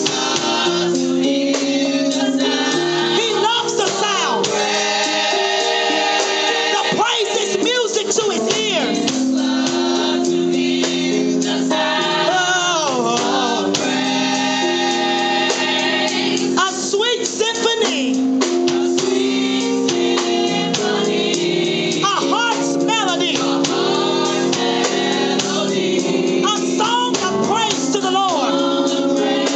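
Gospel praise team singing with instrumental backing: voices over sustained chords, with a tambourine.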